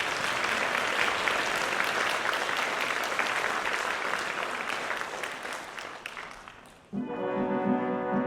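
Audience applauding, the clapping dying away about six and a half seconds in. Just before the end the orchestra comes back in abruptly with sustained chords over a regular pulse.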